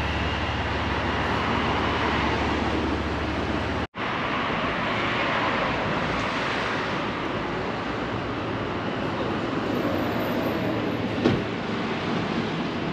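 Steady city street traffic noise: a continuous rush of passing cars. A low rumble underneath falls away where the sound drops out for an instant about four seconds in.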